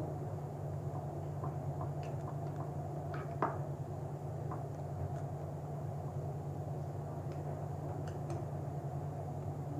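Steel spoon pressing soft upma into a stainless steel bowl, with scattered light clinks of the spoon against the metal, the sharpest about three and a half seconds in, over a steady low hum.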